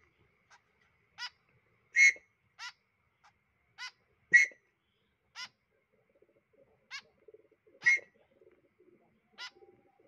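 Fledgling white-breasted woodswallows giving short, sharp begging calls, about ten in all at uneven spacing, the loudest about two, four and a half and eight seconds in, as a mealworm is held to their beaks.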